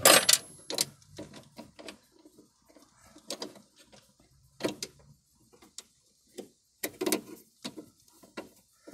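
Irregular light clicks and rattles of a 1958 AMC Rambler's throttle linkage being handled and moved by hand, loudest in the first second.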